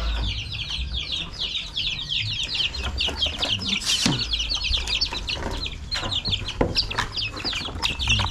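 Chicks peeping continuously: many short, high, falling peeps overlapping without a break.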